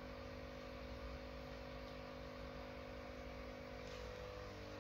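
Faint steady hum of several fixed tones over a low background noise, with one tone dropping out and another coming in near the end.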